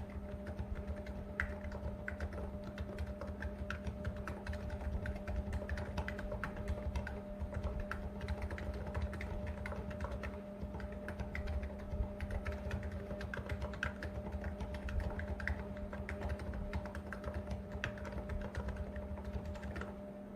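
Continuous typing on a Niz Plum 68 keyboard with electrostatic capacitive switches and stock keycaps: a steady stream of irregular key presses, soft and somewhat clacky as picked up by a phone microphone, over a steady low hum.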